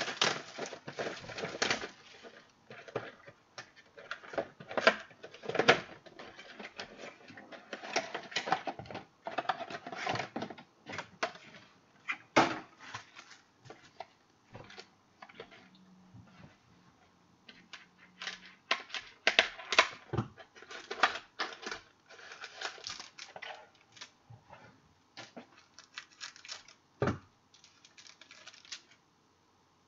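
Trading-card box and packs being opened by hand: irregular crinkling, tearing and clicking of wrappers and cardboard, with cards shuffled, and one sharp click near the end.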